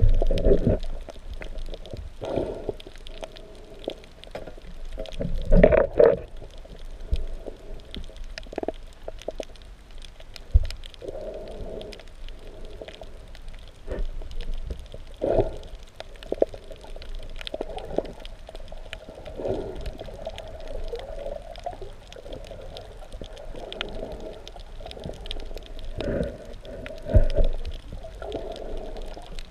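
Muffled underwater noise picked up by a GoPro Hero3+ in its waterproof housing: water gurgling and sloshing, broken by irregular knocks and bumps, the loudest about six seconds in and again near the end.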